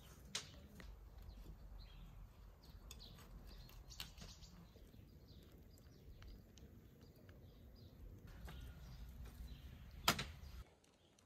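Faint outdoor ambience with a steady low rumble, broken by a few sharp knocks of the knife and fish on a wooden cutting board: one just after the start, one about four seconds in, and the loudest near the end.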